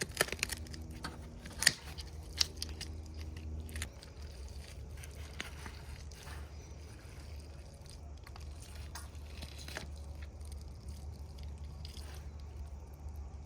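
A blade cutting through a freshly caught striped bass at the head and throat, with scattered crunching clicks and wet squishing sounds. The sharpest crunches come about two seconds in. A steady low hum runs underneath.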